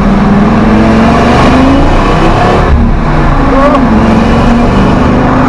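Ford Triton 6.8 L V10 running through a 2.5-inch X-pipe exhaust and revving hard under full acceleration. Its pitch climbs, dips briefly about halfway through, then climbs again, while the rear tires spin and lose grip on the pavement.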